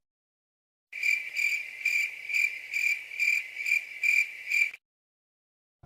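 Crickets chirping sound effect: a high, even chirp repeating about twice a second, nine chirps in all, starting a second in and cutting off abruptly. This is the stock cricket clip used to mark an awkward silence.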